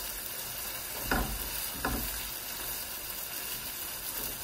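Beef cubes, onion and red peppers sizzling as they fry in a pot, stirred with a spatula, with two brief strokes of the spatula against the pot about a second and two seconds in.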